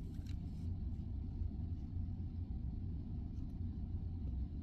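Steady low rumble of background noise, with a few faint light clicks in the first second.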